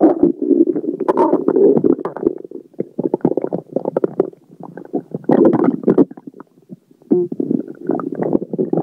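Human stomach and intestines gurgling and rumbling in irregular bubbly bursts, with brief lulls about halfway through and again about two-thirds in: gas from swallowed air churning through the gut.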